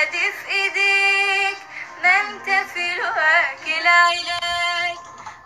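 A woman singing an Arabic pop song, with long held notes and wavering, ornamented runs.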